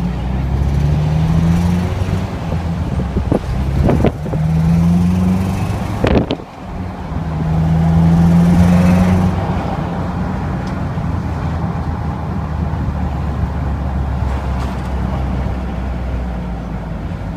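Subaru Impreza STI (GDB) turbocharged flat-four accelerating in three pulls, the engine note rising each time, with brief breaks about four and six seconds in, then running steadily. Under acceleration it makes a 'karakara' metallic rattle, which the dealer traced to the heat shield on the turbine support pipe.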